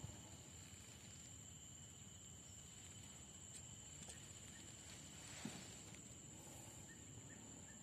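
Near silence: faint outdoor ambience with a steady thin high whine, a few faint clicks and a soft knock in the middle, and a faint run of short repeated chirps near the end.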